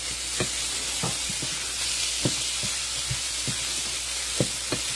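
Food frying in hot oil in a pan: a steady sizzle with scattered short, sharp pops at irregular intervals.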